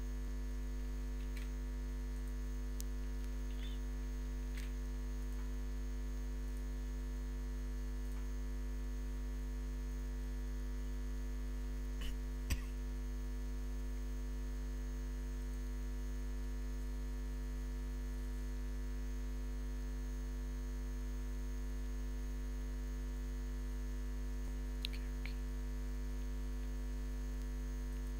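Steady low electrical mains hum on the recording, with a couple of short clicks about halfway through.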